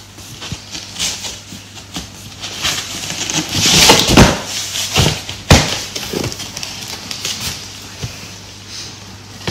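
Cardboard packaging being handled: an inner box and cardboard dividers scraping and rustling against the shipping carton as the box is lifted out, with a sharp knock about five and a half seconds in.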